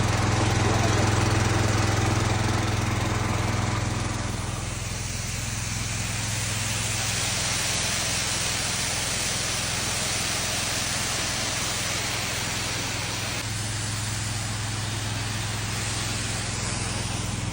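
Honda petrol engine of a pressure washer running steadily, with the loud hiss of its high-pressure water spray on concrete.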